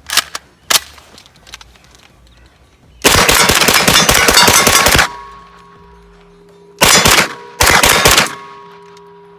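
POF 5 9 mm semi-automatic pistol (MP5-pattern) firing: two single shots at the very start, then about two seconds of rapid fire, then two short quick strings of shots near the end.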